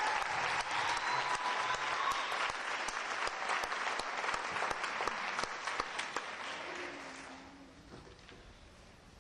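Audience applause, many hands clapping, fading out about seven seconds in.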